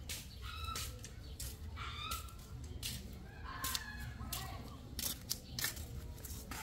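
Chickens calling in short clucks, one call longer and drawn out, among scattered sharp clicks and rustles.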